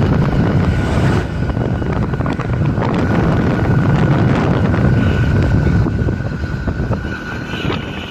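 A moving road vehicle, heard as a steady low rumble of engine and road noise with wind buffeting the microphone, and a thin steady whine running through it.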